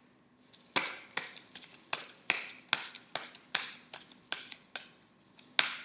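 A deck of oracle cards being shuffled by hand: a steady run of short, sharp clicks about two or three a second, starting a little under a second in.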